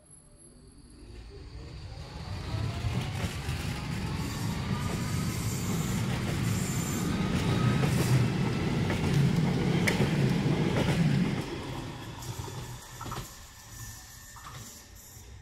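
Porto Metro light-rail tram pulling out of a stop and passing close by. Its electric traction motors whine rising in pitch as it gathers speed, over a heavy rumble of wheels on rail. The sound is loudest as the cars go by and fades after the last car has passed.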